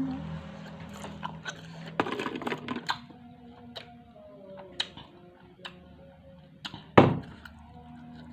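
Close-up eating sounds: scattered crisp clicks and crackles of chewing, with a denser crackly patch about two seconds in and one sharp, loud knock about seven seconds in.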